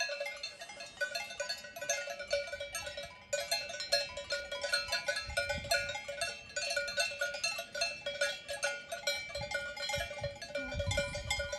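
Many cowbells on a grazing herd clanking irregularly, each bell at its own pitch, the strikes overlapping continuously.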